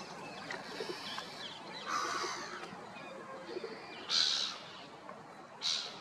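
Black-headed gulls calling: three short, harsh calls, the loudest about four seconds in and another near the end.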